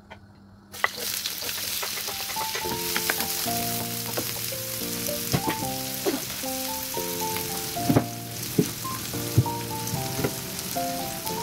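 Chopped onion and garlic hitting hot oil in a wok: a sudden sizzle about a second in that settles into steady frying, with a few sharp clicks. Background music with a simple stepped melody comes in over it.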